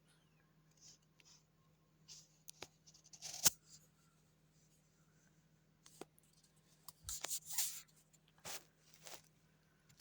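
A sleeping cat's faint snoring breaths: irregular scratchy hisses over a low steady hum, with a sharp click about three and a half seconds in.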